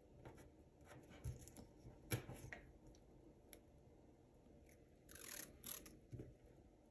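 Faint handling of paper and gold washi tape: scattered light taps and clicks, then a couple of short crackling rasps a little past five seconds in as a strip of washi tape is pulled off its roll.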